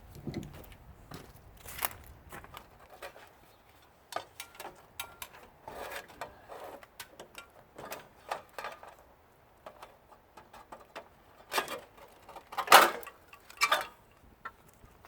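Irregular small metallic clicks and clinks of hand tools and metal parts being handled while dismantling a central air unit, with a few louder knocks near the end.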